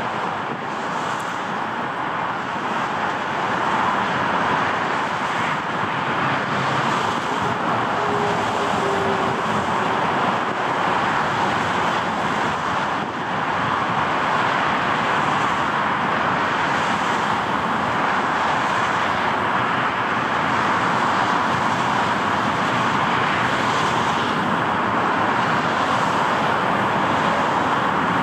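Twin jet engines of a Boeing 777-200ER at takeoff thrust, heard from a distance as a steady rushing noise through the takeoff roll, liftoff and climb-out. It grows a little louder about four seconds in.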